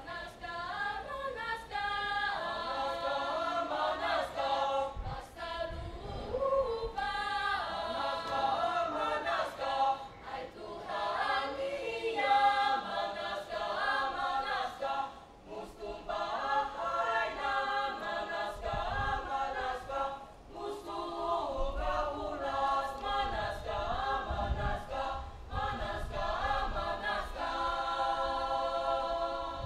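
Mixed group of schoolboys and schoolgirls singing an indigenous mother-tongue song a cappella in several parts, holding chords in phrases with brief breaks between them.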